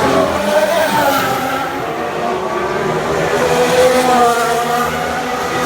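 Formula 1 car with a V6 turbo hybrid engine running on the circuit, its engine note falling and rising in pitch as the car brakes and accelerates.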